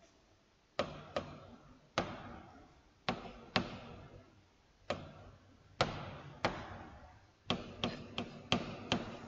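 A digital pen's tip tapping and clicking on the writing surface during handwriting: about a dozen sharp, irregular taps, bunching closer together near the end.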